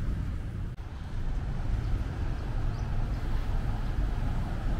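Steady low rumbling background noise, with a brief dip about a second in.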